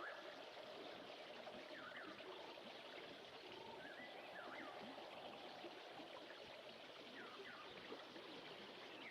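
Faint mountain stream running steadily, with a bird giving short swooping chirps every couple of seconds.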